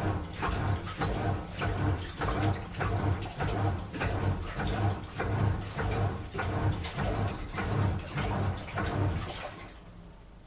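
Washing machine on a strong wash cycle: water and laundry slosh in the tumbling drum in regular surges, about two a second. Near the end the tumbling stops and the sound drops to a faint low hum.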